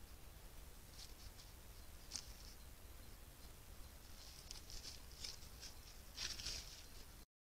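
Faint crisp ticks and crackles from a small mammal nibbling at a pile of bananas and shifting in the leaf litter. They come in scattered clusters, with a denser run about six seconds in, over a steady low hum. The sound cuts out abruptly just before the end.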